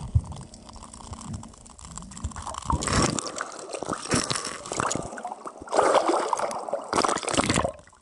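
Water heard through an underwater camera: faint, muffled knocks at first, then from about three seconds in, several loud bursts of splashing and gurgling as the camera reaches the surface. The last burst stops suddenly just before the end.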